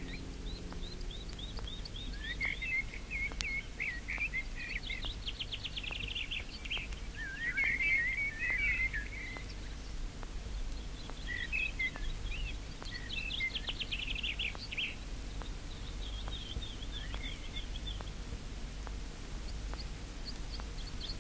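Songbirds singing in repeated phrases of fast trills and chirps, over a low steady rumble.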